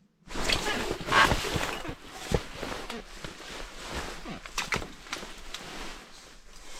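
Close handling noise as a burbot is hooked and hauled up through an ice hole: rustling and scraping with scattered knocks, loudest about a second in.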